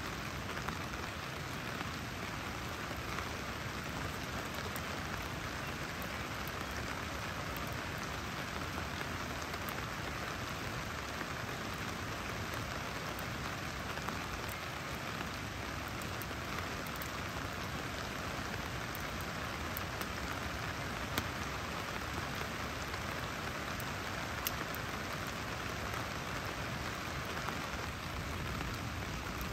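Steady rain falling, an even hiss with a few sharp ticks scattered through it.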